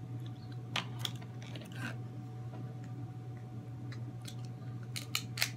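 A person chewing crab meat close to the microphone, with a few short sharp clicks, a cluster in the first two seconds and another near the end.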